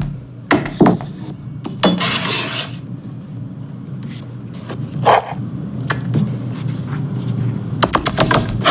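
Kitchen utensils and dishes being handled: a few sharp clinks and knocks, a brief scrape about two seconds in, and a quick run of clicks near the end, over a steady low hum.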